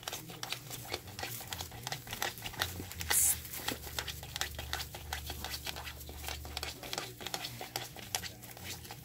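Wood-shavings bedding rustling and crackling as cocker spaniel puppies move and nose through it, in quick irregular crackles, with one sharper scrape about three seconds in.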